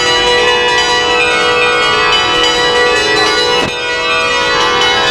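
Bells ringing, many ringing tones overlapping steadily, with a single knock about three and a half seconds in.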